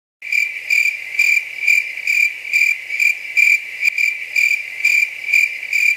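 An insect's steady high-pitched trill, pulsing evenly about twice a second.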